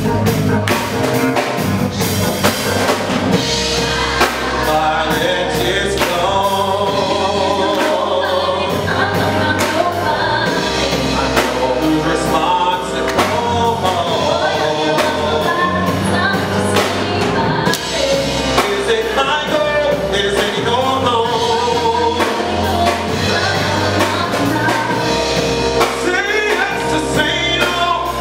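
Live band playing a song: a woman singing lead with backing vocals, over electric bass, keyboard and drums.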